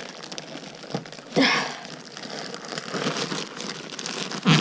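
Packaging being ripped open and handled: crinkling and tearing, with a louder rip about a second and a half in and another near the end.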